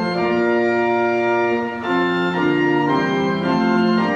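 Edmund Giesecke pipe organ played in sustained chords with its 2-foot principal stop drawn, the stop that speaks an octave above the octave stop. The chords move to new notes from about two seconds in.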